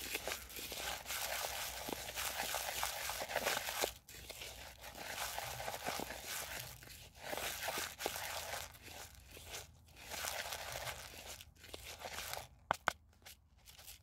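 A bowl of carp groundbait mix (small fishing pellets, salted hemp seed and sweet corn) being stirred together: a continuous crunchy, rattling rustle that pauses briefly now and then, ending in a few separate clicks.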